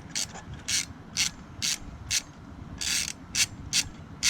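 Hand ratchet wrench clicking in short back-and-forth strokes, about two a second, turning a spark plug on a 2006 Ford Mustang GT V8.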